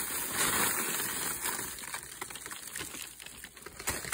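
Fruity Pebbles cereal being poured from a plastic bag into a pot of melted marshmallow: the bag crinkles and the dry flakes rustle down. It starts as a steady rustling hiss and thins after a second or so to scattered crackles and clicks.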